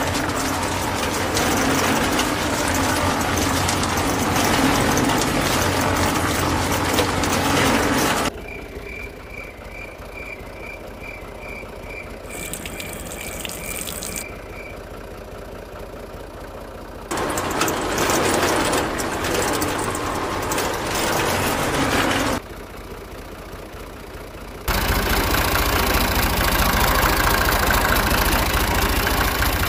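Small electric motor and gears of a toy cement mixer running with a steady whir, in several stretches broken by quieter gaps. During one quiet gap a string of short high beeps sounds, about three a second.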